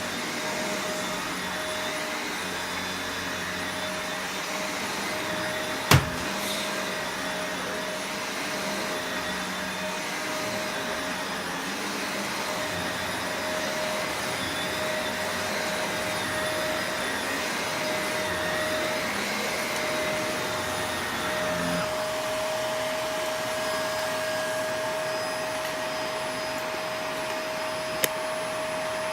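Shark Rotator Professional Lift-Away upright vacuum running steadily over carpet, a constant motor hum with a held whine. A sharp knock comes about six seconds in, and a smaller one near the end.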